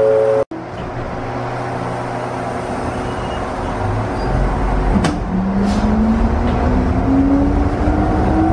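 Electric commuter train standing with a steady rumbling hum. About five seconds in there is a sharp click, and the traction motor whine starts and rises steadily in pitch as the train pulls away from the station and accelerates.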